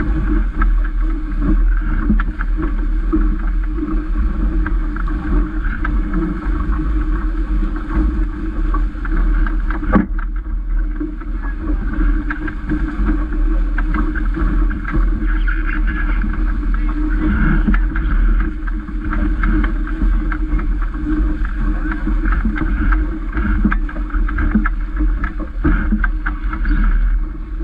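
Water rushing and splashing along the hull of a sailing dinghy under way, with heavy wind buffeting on the microphone. A single sharp knock comes about ten seconds in.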